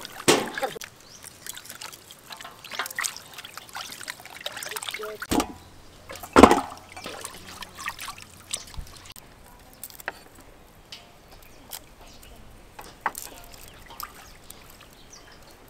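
Water sloshing and trickling as raw chicken pieces are washed by hand in a steel basin, with scattered clicks and one loud knock about six seconds in.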